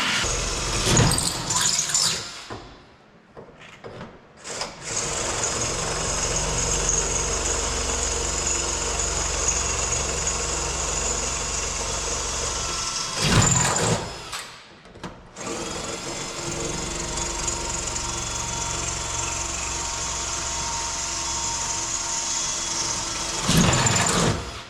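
Power drill running in two long, steady runs of about eight seconds each, drilling rivet holes through a truck cab's skin panel. Loud knocks come between and around the runs.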